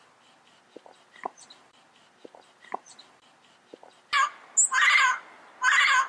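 Yellow-headed amazon parrot giving three loud, harsh squawks in the second half, after a few faint short clicks.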